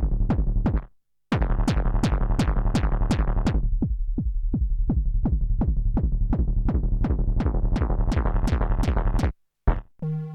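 Arturia MicroFreak synthesizer playing a preset: a repeating pattern of short, punchy plucked hits, about four a second, each with a quick downward sweep over a low, steady pitch. The pattern breaks off briefly about a second in, then runs on until near the end, when a new sustained chord sound begins.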